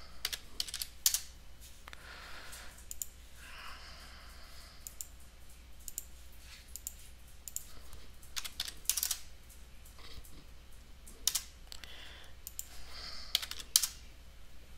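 Computer keyboard typing and mouse clicks: irregular sharp clicks, in small clusters, with short gaps between them.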